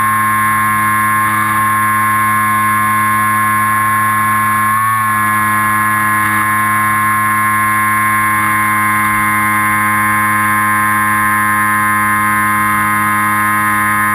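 Electric motor and propeller of an FPV model aircraft running as a steady whine, with a brief wobble in pitch about five seconds in.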